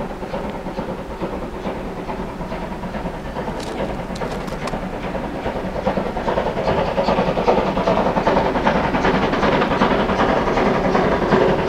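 Steam locomotive hauling a train, growing steadily louder as it approaches.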